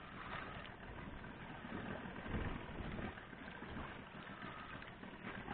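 Boat engine idling, a steady low running sound.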